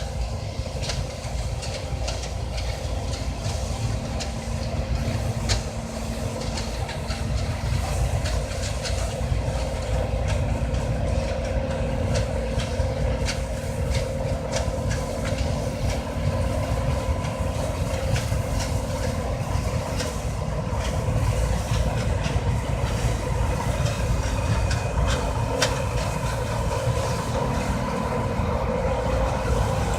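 John Deere C670 combine harvester running steadily while harvesting rice: a constant engine and machinery drone with a steady hum, and frequent light ticks and rattles throughout.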